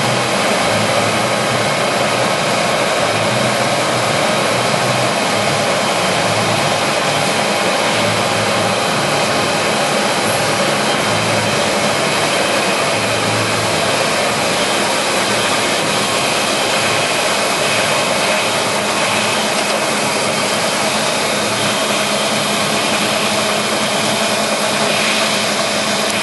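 Monarch Model 62 heavy-duty engine lathe running under power through a test cut on metal: a loud, steady machine sound with several held tones.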